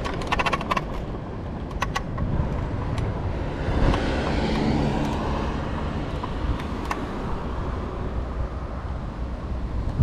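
Riding a Bird electric scooter: steady wind on the microphone and rumble of the wheels on asphalt, with short clicks and rattles from the scooter over bumps. A car goes by about four to five seconds in.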